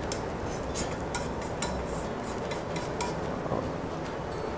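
Light clinks and scrapes of kitchen utensils against dishes, scattered irregularly, over a faint steady hiss.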